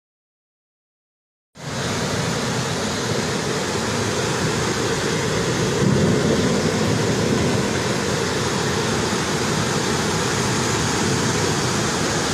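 Torrent of muddy floodwater rushing past, a steady dense rush of water noise that cuts in suddenly about a second and a half in.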